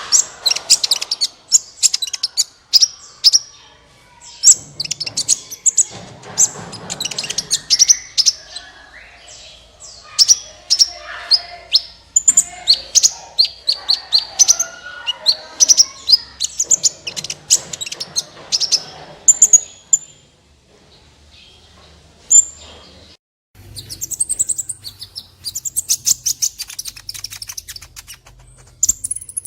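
Sunbird (Indonesian 'kolibri') singing vigorously: fast runs of sharp, high chirps and trills, pausing for about three seconds two-thirds of the way through before starting again.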